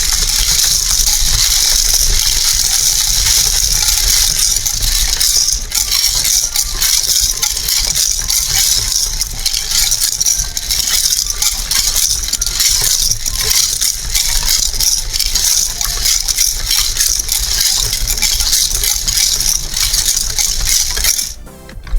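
Continuous dense rattling and clicking of small hard objects being handled, dropping off briefly near the end.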